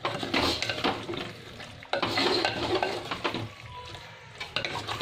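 A wooden spatula stirs pasta and vegetables in an earthenware pot, scraping and knocking against the clay in a few bursts of strokes, with the food sizzling lightly underneath.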